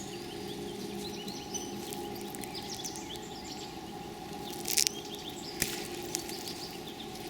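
Garden ambience: a steady background with a faint hum and faint bird chirps, broken by a short crackle of handled plant material about five seconds in and a single click soon after.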